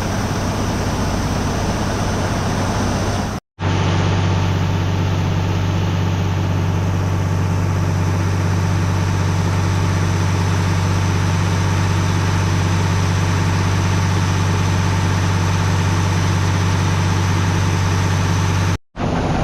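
Steady, loud mechanical running of the machinery while wheat unloads from a hopper-bottom semi trailer: a constant low hum with no change in pitch. It cuts out briefly about three and a half seconds in and again near the end.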